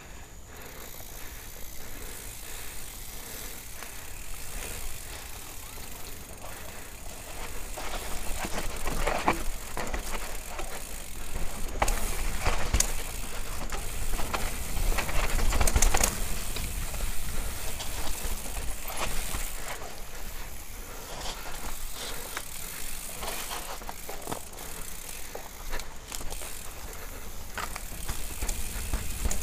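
Mountain bike riding fast down a dirt forest trail, heard from a camera on the bike: a steady wind rumble on the microphone with tyre noise and frequent rattles and knocks as the bike goes over bumps, getting louder and busier about a third of the way in.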